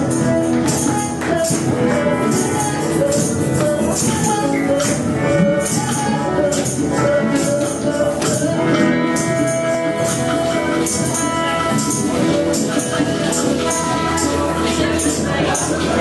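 Live jam-session music: a tambourine shaken and struck to a steady beat over electronic keyboard chords and melody.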